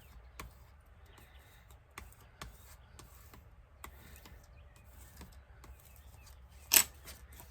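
Paper and card being handled on a craft table: scattered light taps and soft rustles, with one sharp, louder knock or crinkle near the end.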